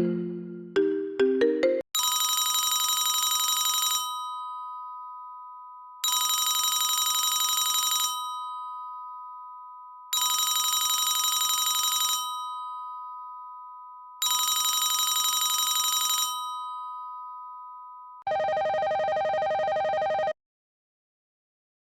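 Sound-effect telephone rings: the end of a marimba ringtone melody, then an old-style telephone bell ringing four times, each about two seconds with a two-tone hum fading in the gaps. Near the end it switches to a buzzier electronic phone ring lasting about two seconds.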